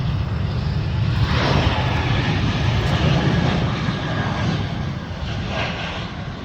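Jet airliner engine noise, a broad rushing roar that swells about a second in and eases off slowly over the last few seconds.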